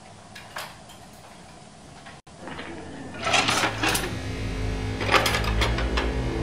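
A wooden kitchen drawer pulled open, its cutlery rattling in a plastic tray, then a knife taken out with a second burst of clinking about two seconds later. A low drone of film score comes in under it and grows.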